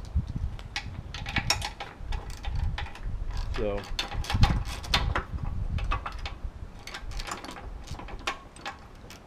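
Socket ratchet wrench with an extension clicking rapidly in short runs as it backs off a half-inch nut holding a sacrificial anode on an outboard's lower unit.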